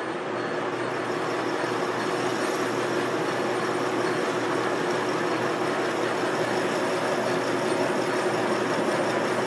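1944 Sidney 16-inch engine lathe running under power during a light skimming cut. The running noise is steady, with a constant tone running through it.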